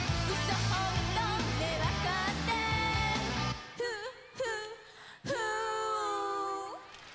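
Japanese pop song with a female lead vocal over a band with bass and drums. A little past halfway the backing cuts out, leaving the voice alone for a couple of short notes and then one long held note that rises in pitch as it ends.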